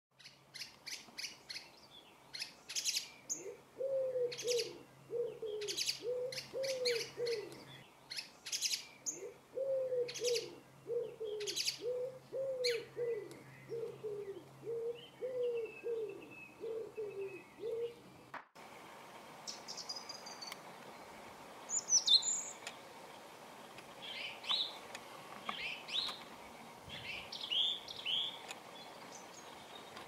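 A thrush calling: a series of sharp, clicking calls about two a second, with low repeated cooing underneath and a faint steady hum. After an abrupt cut about eighteen seconds in, short whistled song phrases follow.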